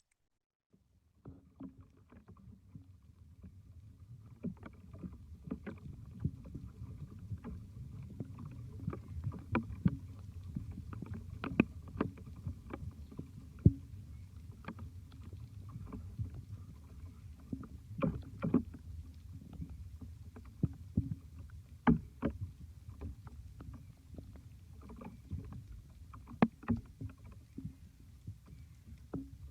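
Field recording of a low, steady rumble with irregular clicks and knocks scattered through it, a few of them louder. It starts about a second in, after a brief silence.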